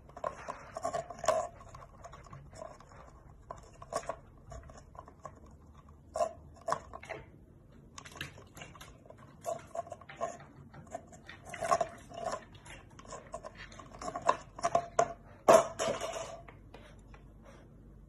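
A cockatiel pecking and nibbling at the rim of a paper cup: short hollow taps in irregular bursts, the loudest near the end of the bursts, each ringing with the same pitch of the cup.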